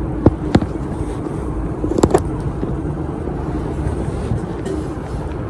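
Steady low road rumble during a ride, with a few sharp clicks near the start and a pair about two seconds in.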